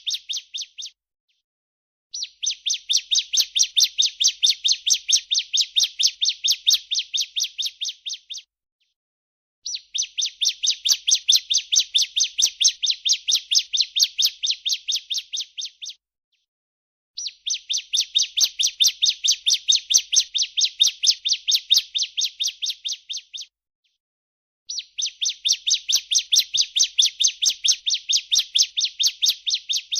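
Female ciblek (prinia) giving its 'breeen' call: a fast, even run of about five high buzzy notes a second, held for about six seconds, then a pause of a second or so, four times over in an identical repeating pattern.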